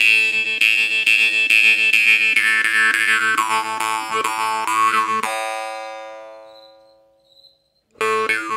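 Masko jaw harp (vargan) plucked rapidly over a steady drone, its bright overtone melody sliding downward as the mouth shape changes. About five seconds in the plucking stops and the note rings away to silence, then playing starts again near the end. Very loud and very piercing, on a harp the player takes for a B.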